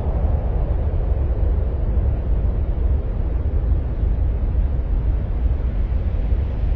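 Steady deep rumbling noise, like strong wind heard on a microphone, sold as an ambient 'sound of Mars' track. A higher hiss eases off right at the start.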